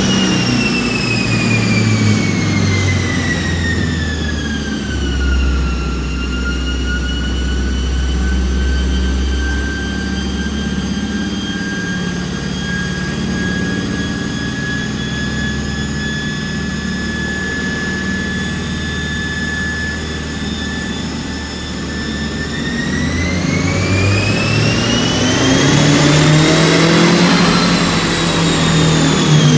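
Turbocharged Honda City i-VTEC engine running under load on a chassis dyno. A high whine falls in pitch over the first few seconds, holds nearly steady for a long stretch, then rises steeply and starts to fall again near the end, over the engine's low drone.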